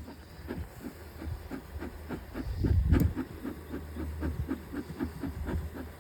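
Beekeeper's smoker bellows being pumped, puffing smoke into a hive in a steady run of short hissing chuffs, about four a second, to calm the bees before the hive is opened.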